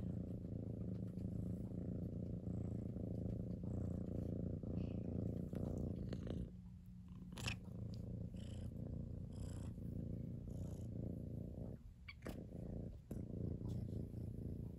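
Domestic cat purring steadily at close range as its head is scratched, with a short break in the purr about halfway through and another near the end.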